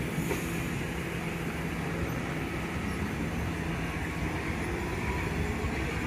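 New York City subway train of R68-family cars pulling out and moving away along the track: a steady rumble of wheels on rail with a low motor hum that fades near the end.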